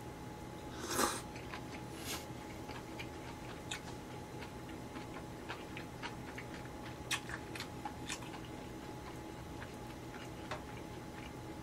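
Eating sounds of sukiyaki noodles: a short slurp about a second in, then soft chewing with scattered small mouth clicks.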